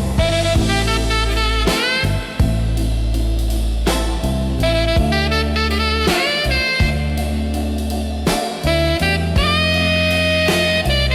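Instrumental break in a slow dark blues song: a lead line of notes that bend upward, over a steady bass and drum kit.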